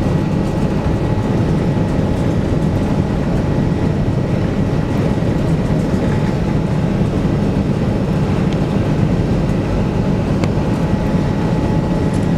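Airbus A380-800 cabin noise from inside the cabin during takeoff and initial climb: a loud, steady rumble of engines and rushing air, with faint steady whine tones on top.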